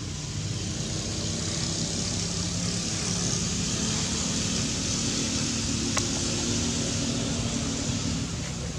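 A motor vehicle passing, a steady rushing that swells through the middle and eases off near the end, with a faint low engine hum, over outdoor background noise; a single sharp click about six seconds in.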